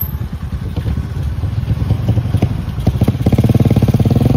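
Vehicle engine running with rapid, even firing pulses. It grows louder as the revs come up about three seconds in.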